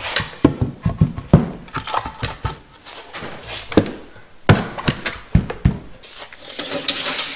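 Split cedar rails knocking and thunking as they are fitted into the mortises of wooden gate stiles: a string of irregular wooden knocks, with a brief scraping hiss near the end.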